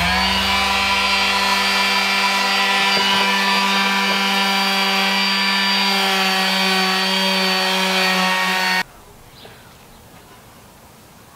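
Random orbital sander running steadily against a black plastic VW engine part, a steady pitched motor hum. It cuts off suddenly near the end, leaving a faint background with a couple of bird chirps.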